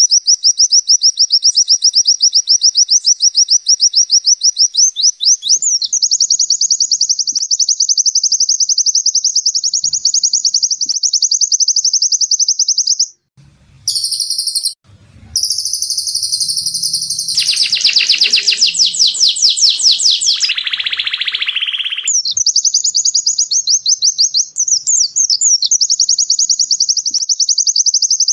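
White-eye (pleci) song: a long, very fast, high trill of repeated notes. About halfway it breaks off briefly, a denser run of notes reaching lower in pitch comes in for several seconds, and then the high rapid trill resumes.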